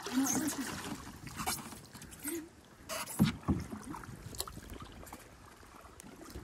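Canoe paddling on calm water: a wooden paddle dipping and pulling through the water in strokes, with splashes and drips off the blade. The strokes are louder in the first half and softer near the end.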